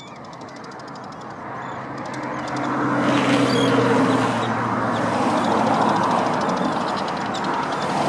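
A motor engine hum with steady low tones that grows louder from about two seconds in and then stays loud.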